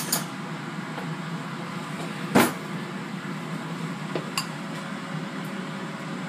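A dish or spoon knocks sharply once about two seconds in, with a lighter clink about four seconds in, as a bowl of mashed potatoes is dished up with a spoon. A steady low hum runs underneath.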